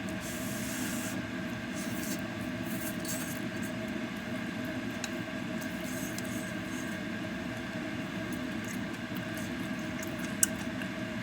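Steady mechanical hum with a few fixed tones, with a brief hiss in the first second and scattered faint clicks and taps, one sharper click about ten seconds in.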